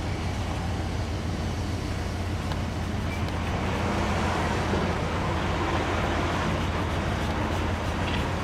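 Steady low engine hum of an idling motor, with a background hiss of traffic-like noise that swells slightly around the middle.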